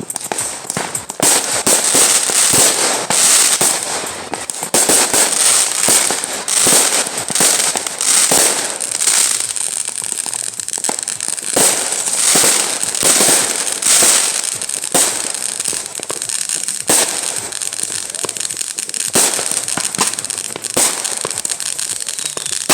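Many firecrackers going off at once: a near-continuous crackle of rapid bangs that swells into louder stretches every few seconds.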